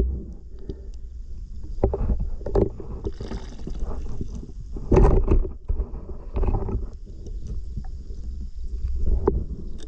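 Water sloshing and splashing, with irregular louder splashes over a steady low rumble of wind on the microphone.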